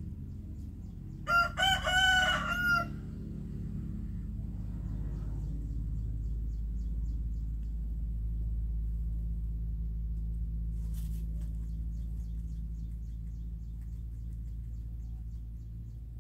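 A single loud fowl call, a pitched phrase of about a second and a half that starts a little over a second in, over a steady low rumble.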